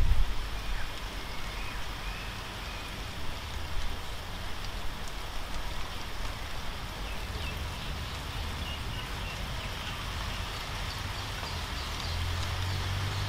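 Steady rain falling, an even hiss with a low rumble dying away in the first moment. A low steady hum comes in near the end.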